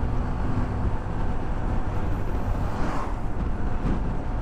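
Steady road and wind noise on a helmet-mounted microphone while riding a Honda ADV150 scooter with its single-cylinder engine running underneath. A brief swell of noise comes about three seconds in.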